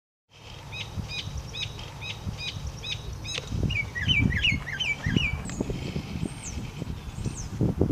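Several birds singing and chirping: a short call repeated about twice a second, then a run of quick downward-sliding notes and higher whistles, over a low rumble with soft irregular thumps.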